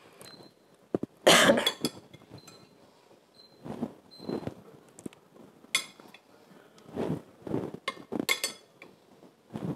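Metal spoon and fork clinking and scraping against a glass mixing bowl and a ceramic dish as canned tuna is scooped across, in irregular short knocks with faint ringing. One louder, longer noise comes just over a second in.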